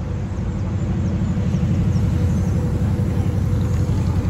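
Road traffic passing close by, cars and a city bus, a low rumble that grows louder about a second in.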